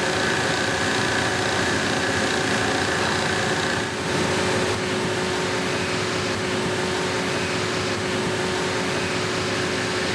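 Hydraulic press running steadily as it crushes an aluminium scuba cylinder in a crush test: an even mechanical hum with a constant whine, and a higher tone that drops out about four seconds in.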